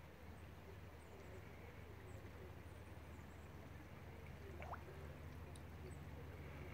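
Near silence: a faint, steady outdoor background with a low hum, broken by one short rising chirp about two-thirds of the way through.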